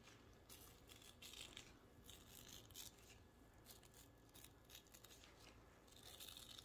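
Faint, irregular flicks of a thumb drawn across the bristles of an old toothbrush loaded with thinned acrylic paint, spattering fine specks of paint onto a bottle.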